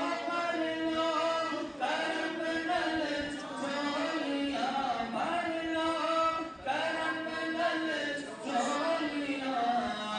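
A man's voice chanting a devotional Islamic poem (kalam) into a microphone, in long held melodic lines with brief breaths between phrases.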